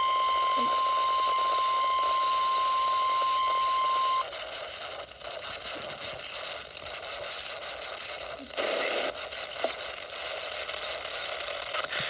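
A Midland NOAA weather radio sounds the steady 1050 Hz warning alarm tone of an EAS Required Monthly Test. The tone cuts off about four seconds in, leaving quieter hissy radio static.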